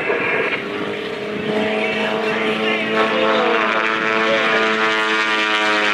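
Taylorcraft light plane's piston engine and propeller running in a steady drone, a stack of even pitched tones that comes in clearly about a second and a half in.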